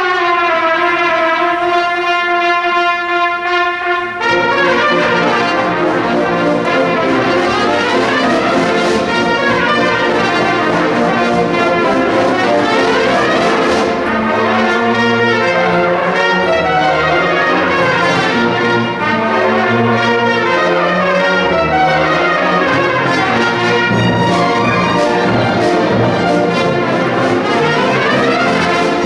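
Solo trumpet with symphony orchestra playing a fast tarantella. A single line falls to a held note, then about four seconds in the orchestra comes in with quick rising and falling runs.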